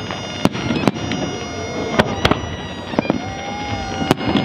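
Fireworks going off: sharp bangs at irregular intervals, about five loud ones, over a steady background din.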